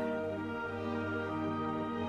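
Background music of slow, sustained chords held steady, with no speech.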